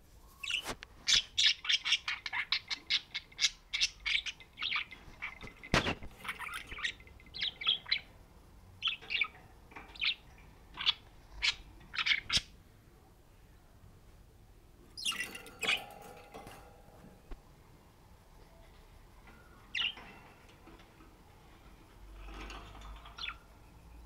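Budgerigar chirping in quick runs of short high chirps for the first several seconds, then in scattered chirps, with a short chattering burst about fifteen seconds in. A single sharp knock sounds about six seconds in.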